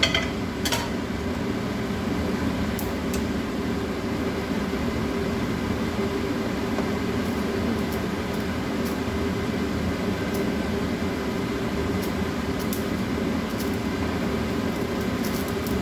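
A fan running with a steady whir and a low hum. At the start, kitchen tongs clatter briefly against a nonstick wok, and a few faint clicks follow later.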